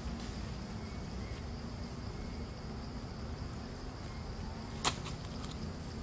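Steady high insect drone over a low outdoor rumble, with one sharp click near the end.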